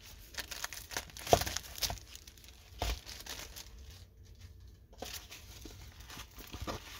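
Clear plastic packaging crinkling and rustling as a rolled diamond-painting canvas is slid out of its plastic sleeve and unrolled. The crackles come irregularly, loudest between one and two seconds in, with a short lull about four seconds in.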